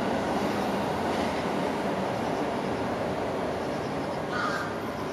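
Steady rumbling background noise, with a brief high squeak near the end.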